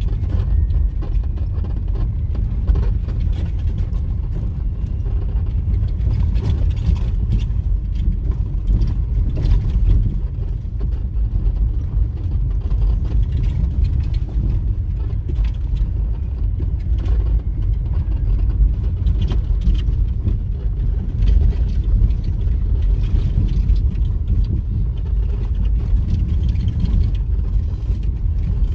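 A vehicle driving along a road: a steady low rumble, with frequent small knocks and rattles throughout.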